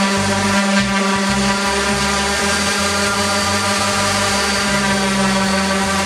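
Electric orbital palm sander running steadily with a constant motor hum, smoothing a wooden board with 120-grit sandpaper.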